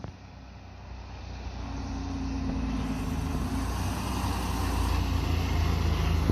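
Diesel engine of a fire truck approaching and passing close, growing steadily louder from about a second in.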